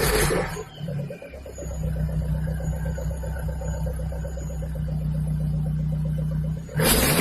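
Hyundai Genesis Coupe 2.0T's turbocharged four-cylinder engine, on an aftermarket turbo-back exhaust, idling steadily with an even low hum. It is revved briefly at the very start, and a louder rev comes in near the end.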